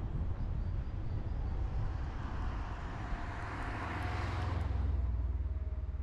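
Wind and road noise of a Tesla Model X electric car driving, heard through a roof-mounted action camera: a steady low rumble from the tyres and wind, with no engine note. A louder rushing hiss swells from about two seconds in, peaks near four seconds, then fades.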